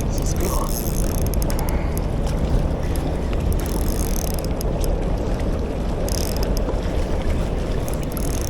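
Steady low rumbling background noise with faint scattered clicks.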